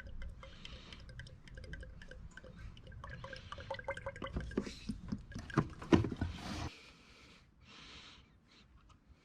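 Motor oil pouring from a bottle into the engine's oil filler, with small clicks and knocks from the bottle, ending abruptly a little under seven seconds in.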